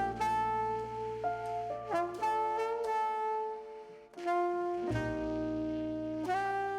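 Background music: an instrumental jazz tune led by horns, with sustained notes over a steady bass.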